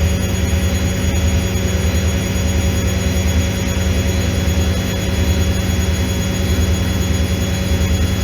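Automatic washing machine running: a steady low motor hum with a fast flutter and a thin, steady high whine above it.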